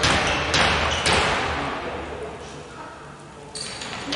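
Basketball bounced on a wooden gym floor by a player at the free-throw line, three bounces about half a second apart, each ringing in the hall. This is the dribble before the free throw is shot.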